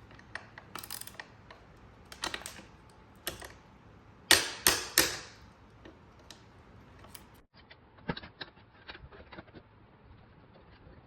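Scattered clicks and taps from hand work on parts, with three loud knocks in quick succession about four seconds in, then a run of lighter clicks.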